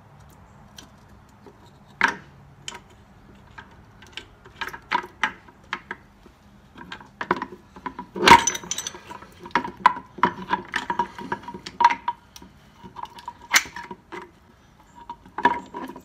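Steel gears of a 1953 Dodge three-speed manual transmission clinking against each other and the gearbox case as they are shifted and slid by hand on the shaft. Irregular metallic clinks, some ringing briefly, the loudest about eight seconds in.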